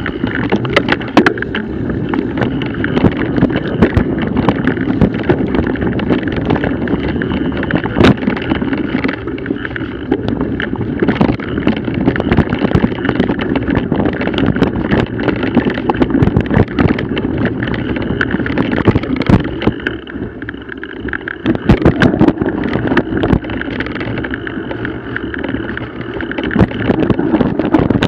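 Mountain bike ridden down a dirt and leaf-covered trail, picked up by a camera on the handlebars: a steady rush of tyres over the ground, frequent knocks and rattles from bumps, and wind buffeting the microphone. The noise eases briefly about two-thirds of the way through.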